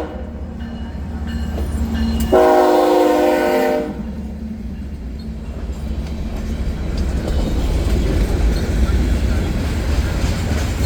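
Diesel freight locomotive's air horn sounds one blast of about a second and a half, a chord of several steady tones, about two seconds in. Under it a low rumble of the oncoming train grows steadily louder.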